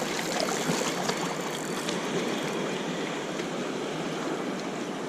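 A mountain river rushing steadily, an even wash of water noise.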